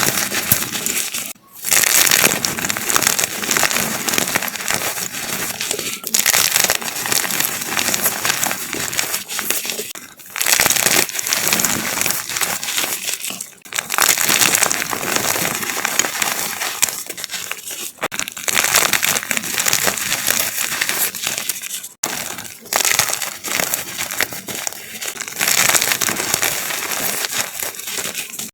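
Large chunks of chalk being crushed and crumbled, a dense crunchy crackling that keeps going, with a few short pauses between crushes.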